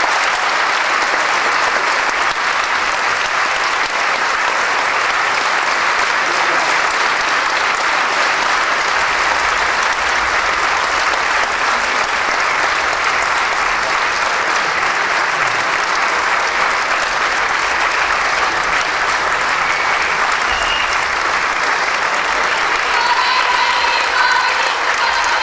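Theatre audience applauding steadily and at length. Near the end, a few notes of folk music begin to come in under the applause.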